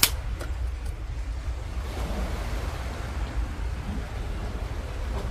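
Sea waves washing on a pebble beach, a steady rush of surf with wind rumbling on the microphone. A single sharp click comes right at the start.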